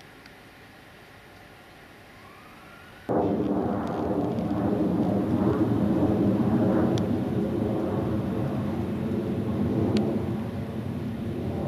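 A loud, steady rumble of distant engine noise that starts abruptly about three seconds in and carries on, with a couple of faint clicks later.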